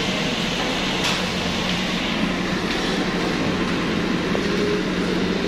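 Steady restaurant background din: a constant hum of ventilation under an even wash of noise, with one light click about a second in.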